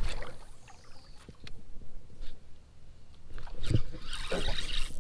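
A cast with a spinning rod: a swish, then line hissing off the reel with a falling pitch over about a second. Small clicks follow, and near the end a few knocks with splashy, rustling noise.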